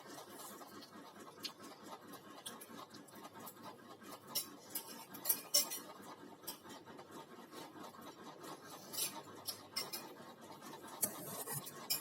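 A spoon scraping and clinking on a plate of fried rice while eating, in scattered short clicks and scrapes.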